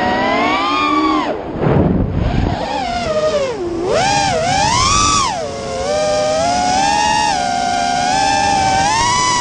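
FPV quadcopter's brushless motors whining, the pitch sweeping up and down with the throttle, dropping sharply as the throttle is chopped about a second and a half in and again near four seconds.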